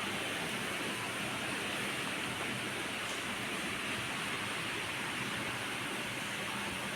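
Steady background hiss with a faint low hum underneath, unchanging throughout; no calls or other events.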